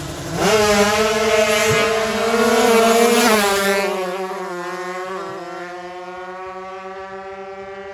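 155 cc sport-class drag motorcycles, tuned Kawasaki Ninja two-strokes, launching at full throttle about half a second in. The engines scream at high revs, then hold a steady high pitch while fading as the bikes run away down the strip.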